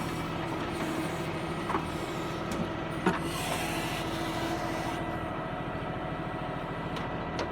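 Tractor diesel engine running steadily, with a few sharp knocks, the loudest about three seconds in, followed by a short hiss.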